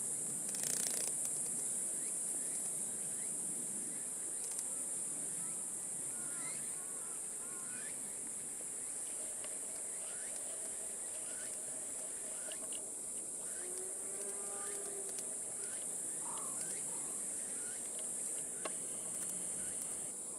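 Steady high-pitched drone of insects singing, with short faint chirps scattered through it.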